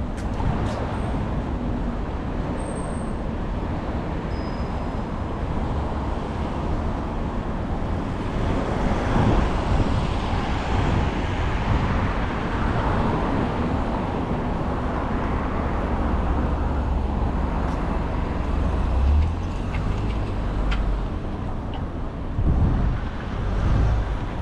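Street traffic: a steady rumble of car engines and tyres, swelling louder several times as vehicles pass.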